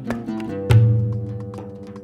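Background music of plucked string instruments: sharp plucked notes over a deep bass note that returns about every second and a half.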